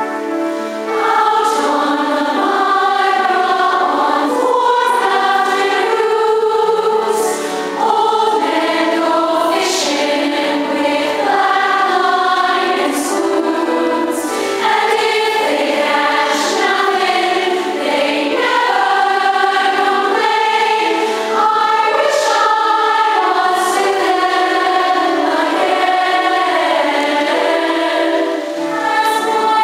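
A large women's choir singing a song in harmony, several voice parts sounding together and the words sung with clear hissing consonants.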